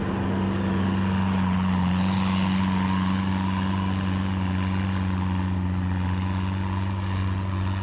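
Bobcat S185 skid-steer's diesel engine running steadily under a constant hum, with a steady rushing mechanical noise over it.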